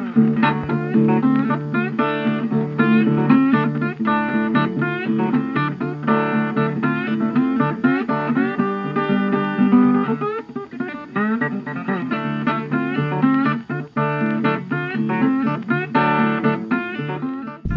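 Music: a bluesy guitar tune with plucked notes that bend in pitch over a steady low chordal accompaniment.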